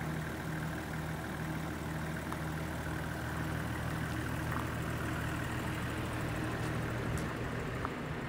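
Toyota Coaster's 1HZ 4.2-litre inline-six diesel idling steadily.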